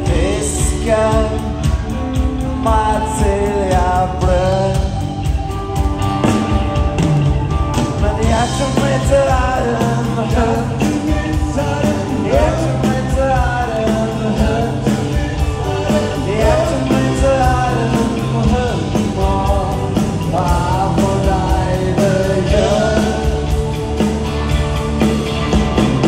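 Live rock band playing: electric and acoustic guitars and drums, with a sung lead vocal over them.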